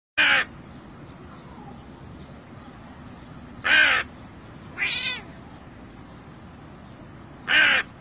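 A crow cawing: three loud, harsh single caws about three and a half seconds apart, with a quieter, softer call between the second and third.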